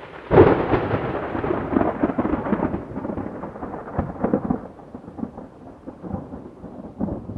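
Thunder: a loud clap about half a second in that rolls on as a long rumble, with a sharp crack about four seconds in, fading toward the end.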